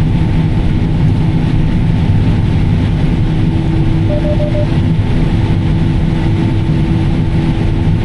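John Deere S780 combine running steadily under harvest load, a constant heavy drone heard from inside the cab. A faint quick triple beep sounds about four seconds in.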